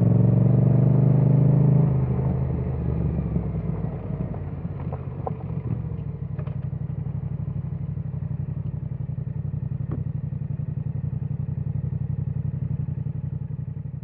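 Yamaha XSR700's parallel-twin engine running under way, easing off about two seconds in as the bike slows, then settling into a steady, even idle. A few light clicks come through during the idle.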